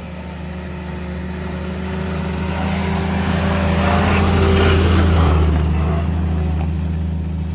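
World War II jeep's four-cylinder Go-Devil engine running as the jeep drives up and past, growing louder to a peak about two-thirds of the way through and then fading as it moves away.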